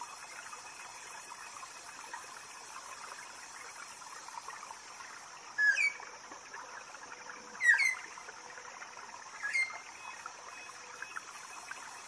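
Jungle ambience: a steady chorus of insects, with a bird giving three loud, short sweeping calls about two seconds apart.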